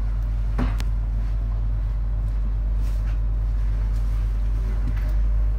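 Steady low hum of a standing ES2G 'Lastochka' electric train, with a sharp click a little over half a second in.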